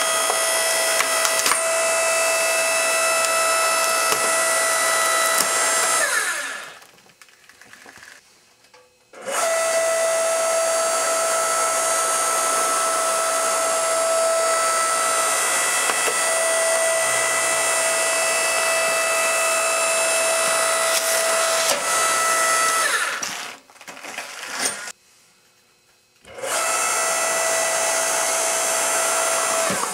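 Electric log splitter's motor and hydraulic pump running with a steady whine as it drives the wedge into a rubber boot. It winds down and stops twice, about a third of the way in and again near the end. Each time it starts up again after two or three seconds.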